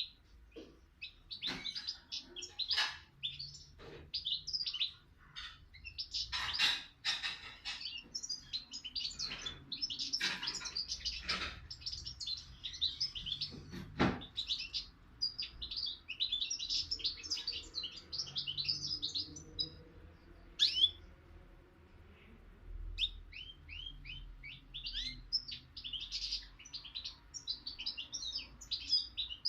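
A young caged songbird singing in long runs of rapid twittering notes, with a brief break about two-thirds of the way through. A few sharp knocks are mixed in, the loudest about halfway through.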